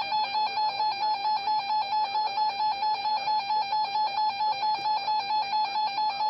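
Weather radio alert tone announcing an incoming warning broadcast: a single high, steady-pitched tone that pulses about five times a second.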